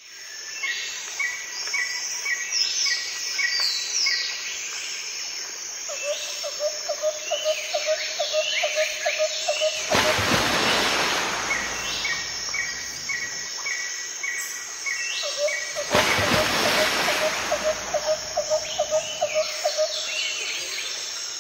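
Birds calling in open country: runs of short repeated chirps, higher falling whistles, and a lower call pulsing a few times a second that comes and goes. Two stretches of rushing noise swell up about ten and sixteen seconds in.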